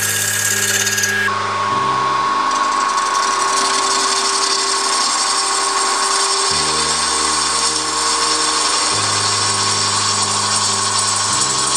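Wood lathe spinning a cherry blank while a turning tool cuts into the end of the wood, a steady hiss of cutting over the motor's whine, which drops in pitch about a second in.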